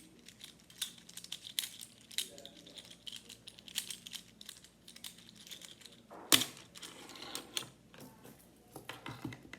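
Plastic fidget toy being fiddled with: rapid, irregular clicks and taps, with one louder snap about six seconds in.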